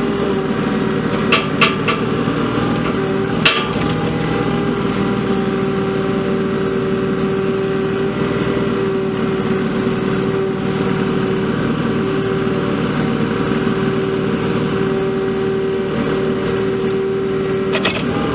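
Mini excavator's diesel engine running under load with a steady whine while the bucket digs a trench. A few sharp clanks sound about a second and a half in, a louder one a couple of seconds later, and two more near the end.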